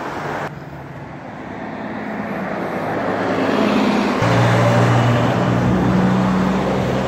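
City transit bus engine running close by, with a steady low hum that grows louder and peaks around the middle and later part, over street traffic noise.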